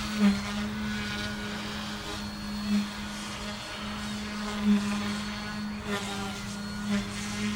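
OMPHOBBY M1 micro RC helicopter hovering: a steady hum from its electric motors and spinning rotor, with four brief swells as the throttle and pitch are worked to hold the hover.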